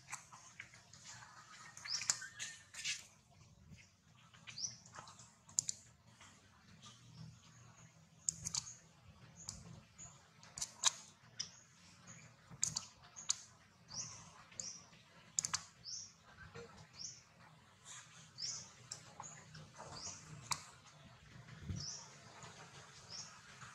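Small birds chirping: short, high chirps about once or twice a second, mixed with a few soft clicks.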